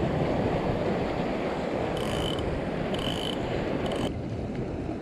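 Wind buffeting the microphone over sea surf, with three short ratcheting bursts from a spinning fishing reel about two, three and four seconds in. The wind noise drops abruptly just after the last burst.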